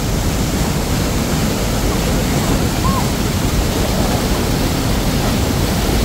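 Waterfall's steady loud rush of falling water, with one short faint high call about three seconds in.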